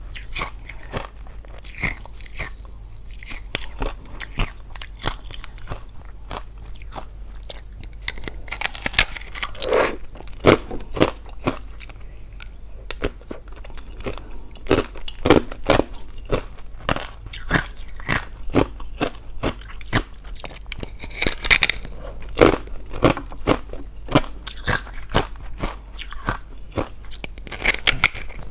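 Close-miked biting and chewing of hollow ice frozen in the shape of a glass: a steady run of sharp, irregular crunches and crackles as the thin ice shell snaps and breaks between the teeth, with several louder bites.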